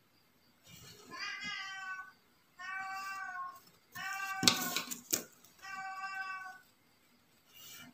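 Felt-tip marker squeaking on paper as it draws lines along a ruler: four high, steady squeaks of about a second each, with a sharp tap about halfway through.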